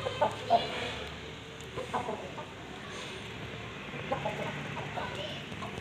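Aseel chickens clucking in short, sharp calls that come in small groups, the loudest about half a second in.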